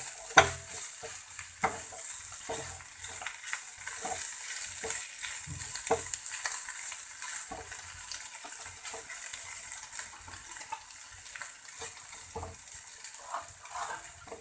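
Potato-and-paneer stuffing sizzling in a pan on the gas while it is stirred, the utensil scraping and tapping against the pan at irregular moments over a steady frying hiss.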